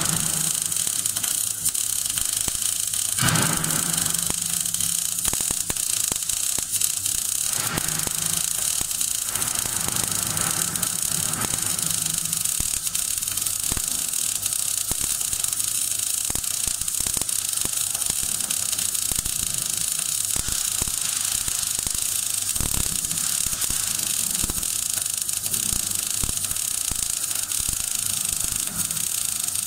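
MAG (gas metal arc) welding arc running steadily on a vertical-up plate butt joint during the root pass, an even crackling hiss.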